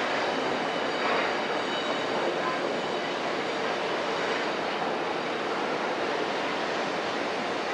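1960 Demag harbour crane at work, its travel and slewing gear making a steady rail-like mechanical rumble, with a faint high squeal in the first few seconds.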